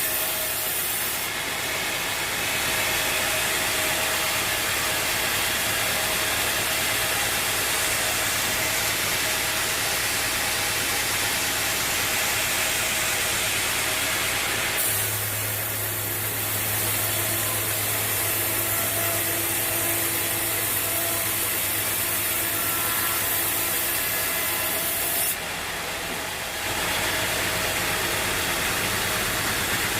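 Bandsaw mill sawing a teak log: the blade cutting through the wood with a steady noise over the mill's running engine. About halfway through, the sound shifts and a low engine hum comes up; it shifts again briefly near the end.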